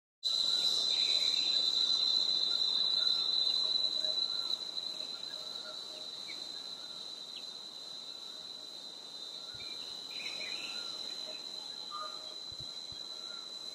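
Steady, unbroken high-pitched insect drone, louder for the first four seconds, with faint scattered bird chirps underneath.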